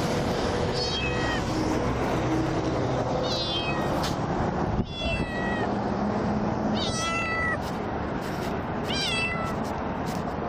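Young kitten meowing four times, high-pitched, distressed cries a couple of seconds apart, over a steady rush of highway traffic.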